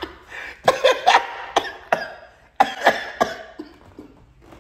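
Coughing in two short bouts of sharp bursts, the first about a second in and the second near three seconds in.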